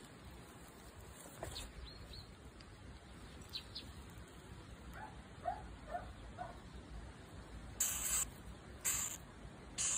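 A mole gives about five short, faint squeaks a little past the middle. Then a cat's paw swats at it in the grass: three short rustling bursts, about a second apart, near the end.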